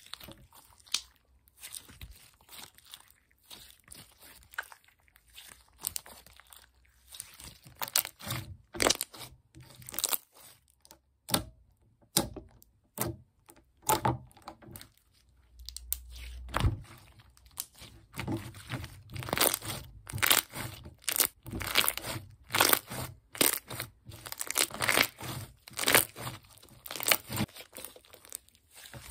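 Hands kneading, stretching and folding clear slime blended with white clay slime, giving irregular sticky pops, clicks and crackles. They are sparse at first and come thick and fast from about a quarter of the way in.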